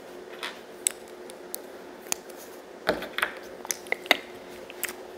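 Small plastic LEGO pieces clicking and tapping as they are handled and pressed together: a dozen or so short, sharp clicks, scattered and irregular, bunched about three seconds in, over a faint steady hum.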